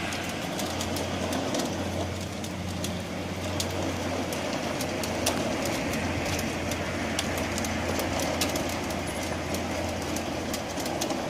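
Dogmills electric dog treadmill running with a steady low hum and rumble from its motor and belt. Over it come quick, irregular sharp ticks, several a second, as the dog's paws strike the moving belt while it trots.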